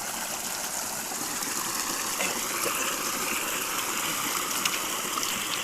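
Small river's water running steadily with a rushing sound, with a couple of small taps near the end.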